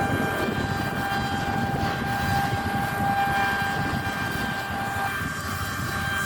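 Claas Lexion 8900 combine harvester running under load, a steady low machine rumble with a high whine over it; part of the whine drops away about five seconds in.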